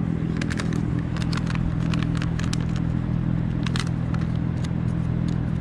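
A steady low mechanical hum with several even tones, under scattered sharp crackling clicks from a small plastic parts bag being handled.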